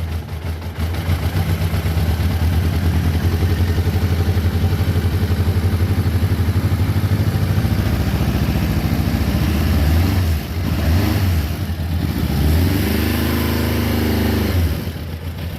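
A 1989 Suzuki GSX-R 750's inline-four engine running at a steady idle, then blipped a few times and revved up and back down once near the end. The owner says the engine needs a tune-up, and it is running on old fuel of unknown age.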